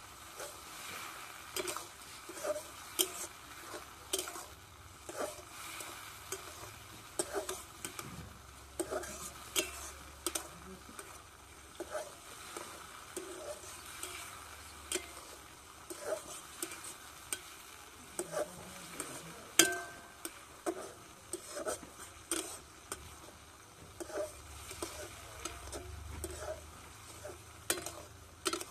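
A metal spatula scrapes and clinks against a steel wok, roughly once a second, as chopped vegetables and onion are stirred, over a faint sizzle of frying. One sharper clank comes about two-thirds of the way through.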